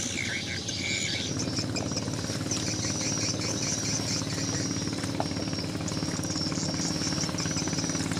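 Single-cylinder Honda GX420 engine, bored up to GX460 size with a 3 mm longer stroke, idling steadily in a small racing boat, settling into an even running note about a second in. Faint high-pitched chirping runs above it.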